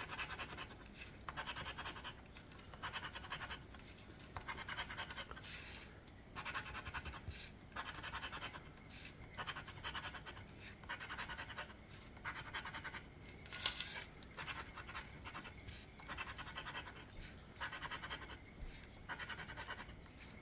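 Scratching the latex coating off an instant lottery scratch-off ticket in repeated short bursts of scraping, with brief pauses between them. There is one sharp click about thirteen seconds in.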